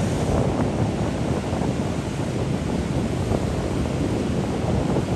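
Wind buffeting the microphone, a steady rushing noise that stays heavy in the low end throughout.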